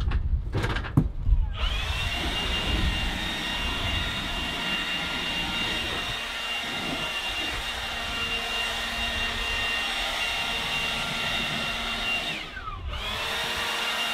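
Handheld leaf blower, after a few knocks, spinning up about a second and a half in and running steadily with a high whine. Near the end it winds down briefly, then spins back up.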